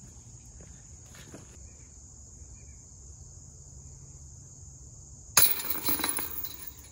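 Steady chirring of crickets or other insects; about five seconds in, a putt strikes the chains of a Discraft disc golf basket with a loud metallic chain rattle that fades over a second or so.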